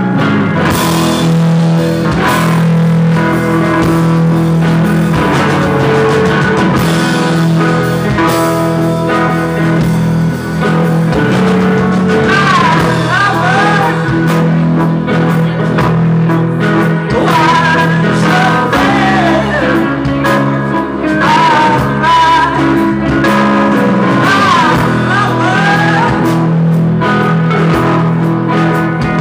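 A live rock band playing a song on guitars, with a singer's voice and bending melody lines over steady low notes.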